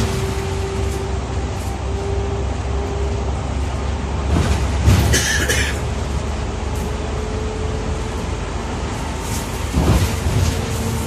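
Bus interior noise while driving on a wet road: a steady low rumble of the ride with a faint steady whine, and a short hiss about five seconds in.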